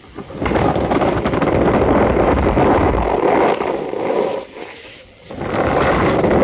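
Cornstarch powder being squeezed and pressed by hand, giving a dense, squeaky crunching made of many tiny crackles. It pauses briefly about four and a half seconds in, then starts again.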